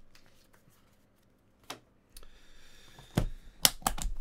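Gold aluminium card box being shut: a knock from the lid about three seconds in, then a few sharp clicks from its metal latches near the end.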